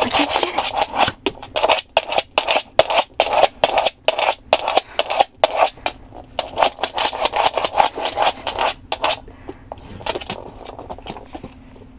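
German Shepherd's claws scratching and scrabbling on a hardwood floor as it paws at a flashlight spot, in rapid rough strokes several times a second that thin out after about nine seconds.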